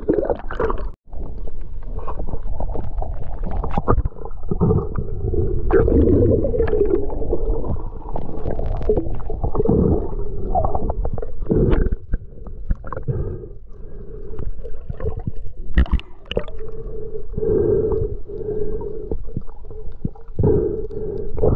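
Underwater sound picked up by a submerged camera: a muffled rumbling and gurgling of moving water, with scattered clicks and knocks.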